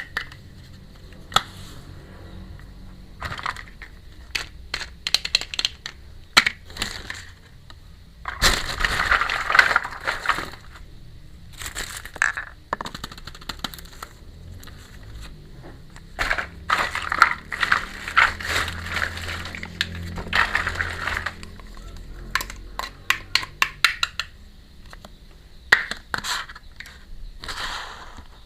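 Miniature plastic toy kitchen pieces and their plastic packaging being handled during unboxing: many small clicks and taps, with two longer spells of crinkling about eight and sixteen seconds in.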